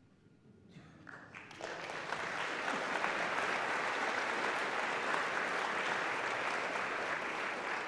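Lecture audience applauding. The clapping swells over the first two seconds, then holds as steady applause until it cuts off abruptly.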